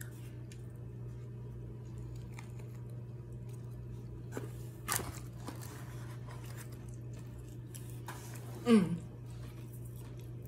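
A person chewing crunchy fried food, with soft bite clicks a little before the middle and a short falling voiced 'mm' near the end, over a steady low hum.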